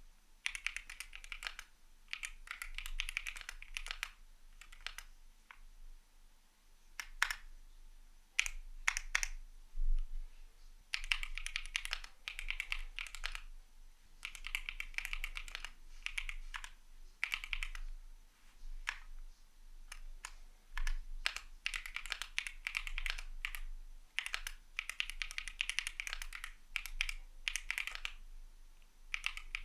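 Typing on a CIDOO V75 mechanical keyboard with Matte switches: runs of rapid keystrokes broken by short pauses, with a few single key presses about a quarter of the way in.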